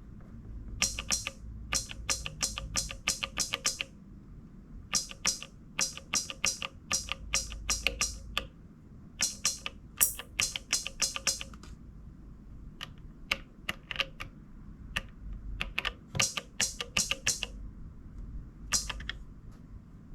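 Elektron Digitakt playing a sequenced pattern: clusters of rapid, sharp, bright hi-hat-like clicks with uneven gaps over a steady low bass. The pattern is a polyrhythm programmed on the machine.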